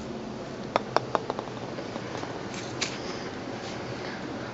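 A golf ball bouncing on hard paving: a quick run of about five sharp clicks coming ever closer together, about a second in, with a few fainter ticks later.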